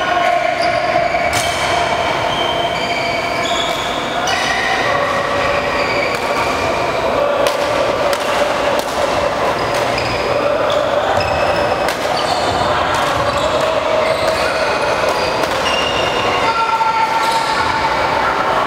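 Badminton play on a wooden indoor court: sports shoes squeaking on the floor in many short squeaks at shifting pitches, with sharp racket hits on the shuttlecock every few seconds, over a steady hall din.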